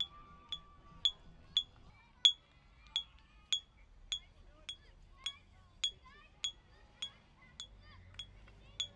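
Glass bottles clinking in an even rhythm, a little under two clinks a second, each with a short bright ring; one clink about two seconds in is the loudest.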